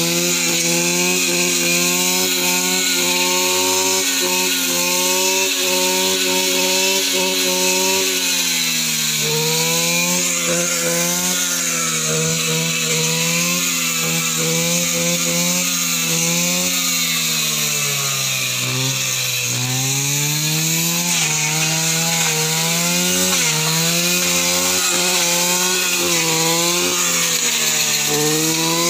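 Petrol brush cutter engine running near full throttle while its blade cuts through grass, weeds and leafy brush. The pitch holds steady at first, then dips and recovers several times, sagging deepest about two-thirds of the way through.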